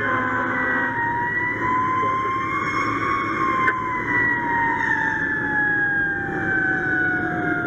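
Fire apparatus siren heard from inside the cab, its pitch rising a little and then falling slowly and steadily, over the steady rumble of the truck's engine. A single sharp click sounds near the middle.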